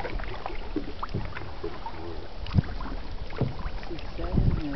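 Lake water splashing and trickling beside a canoe as a small child's hand drags through it, over a steady low wind rumble on the microphone. A sharp knock comes about two and a half seconds in, and a louder thump near the end.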